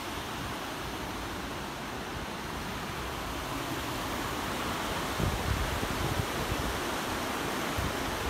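Steady rushing wind noise, with low gusts buffeting the microphone from about five seconds in.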